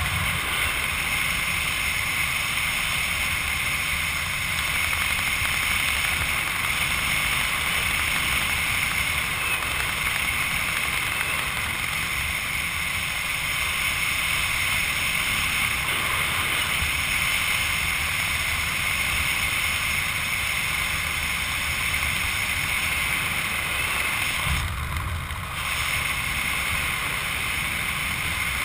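Steady rush of wind over a helmet-mounted camera's microphone as the parachutist descends under an open canopy. The sound turns briefly muffled for about a second near the end.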